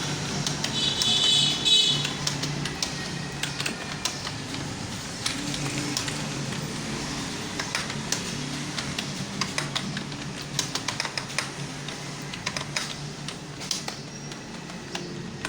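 Computer keyboard being typed on, keys clicking in an uneven stream of several strokes a second during a timed typing test.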